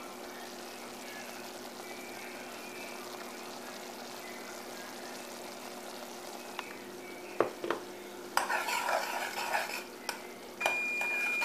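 Butter melting in a saucepan with a steady, gentle sizzle. About eight seconds in, a metal utensil scrapes and knocks in the pot for a couple of seconds, and a short high-pitched tone sounds near the end.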